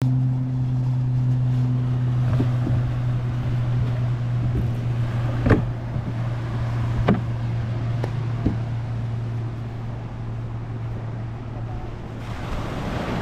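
A motor running steadily with a low hum, with a few sharp knocks around the middle; the hum fades away near the end.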